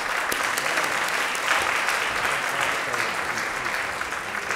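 Audience applauding steadily in a hall, a dense round of many hands clapping that swells to its peak about a second and a half in and then slowly fades.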